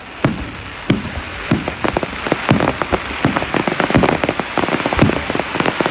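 Aerial firework shells bursting in a string of sharp bangs. A dense, rapid crackle from crackling stars builds up under them and fills the second half.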